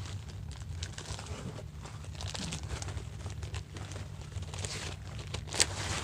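Packaging crinkling and rustling as a slabbed comic book is unwrapped by hand, with a sharper crackle about five and a half seconds in.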